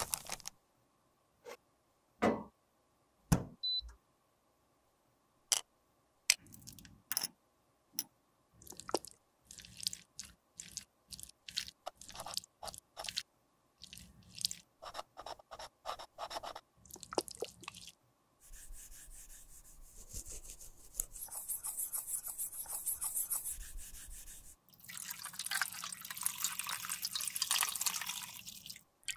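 Separate short clicks, taps and scrapes of small tools against plastic cosmetic cases and a glass jar. These give way to a steady hiss for several seconds, then tap water running over a plastic compact case near the end.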